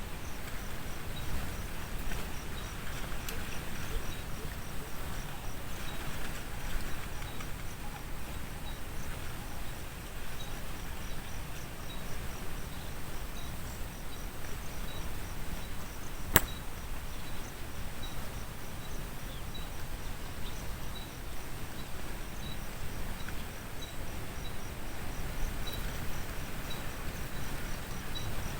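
Outdoor background noise with a low steady rumble and a faint, regular high chirp about twice a second, insect-like. There is one sharp click a little past halfway.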